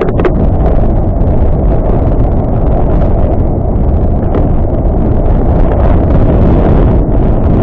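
Wind buffeting the microphone of a cyclist's camera while riding, a loud steady low rumble.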